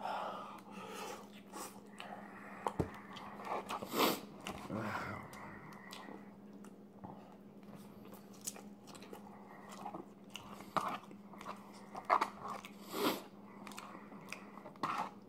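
Close-up chewing and mouth sounds of a man eating McDonald's poutine (fries with cheese curds and gravy): scattered short clicks and bites at a low level, over a faint steady low hum.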